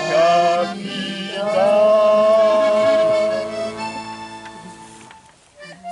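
A song performance: a singer holds the last note of a sung line over instrumental accompaniment, then the accompaniment plays on alone and fades to a short pause about five seconds in before starting up again at the end.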